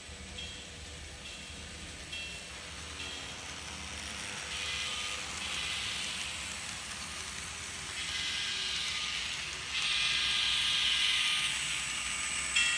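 N scale model freight train running past: a hissing rush that swells in waves and is loudest near the end, as the locomotives come by close. A small electronic ding repeats about once a second in the first couple of seconds.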